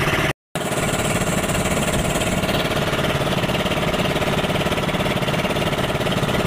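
Engine of a motorized outrigger fishing boat (lansa) running steadily underway, a fast, even chugging, with a brief break about half a second in.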